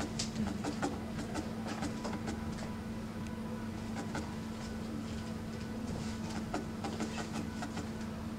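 Felting needle stabbing rapidly through loose wool into the foam pad, making a run of small irregular clicks, several a second. A steady low hum sits underneath.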